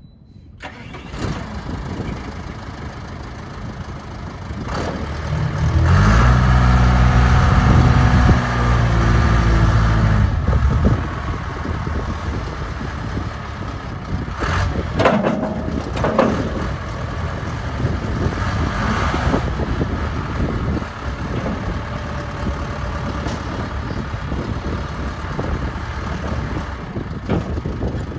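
John Deere 310D backhoe's 70 hp John Deere diesel engine starting and running, revved up for about five seconds from around six seconds in, then settling back to a steady lower speed. Two brief sharp noises come about halfway through.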